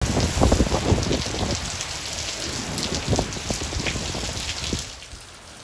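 Heavy storm rain pouring down, with strong wind gusting against the microphone in low rumbling bursts during the first second and a half and again around three seconds in. The sound drops a little near the end.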